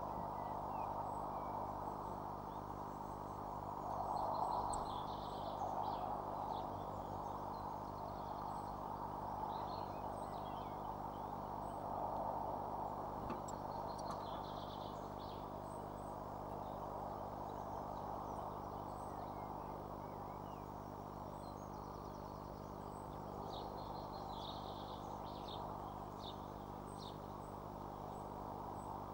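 Birds chirping in short high calls, coming in scattered clusters over a steady hiss and low hum.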